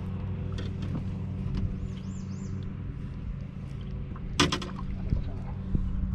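Boat motor running with a steady low hum. A brief sharp rattle about four and a half seconds in.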